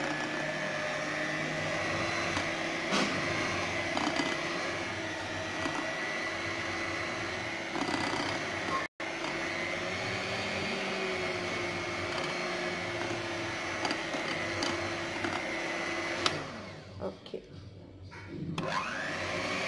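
Electric hand mixer running steadily at its lowest speed, its beaters whirring through chocolate cake batter. It stops about sixteen seconds in and starts up again near the end with a rising whine.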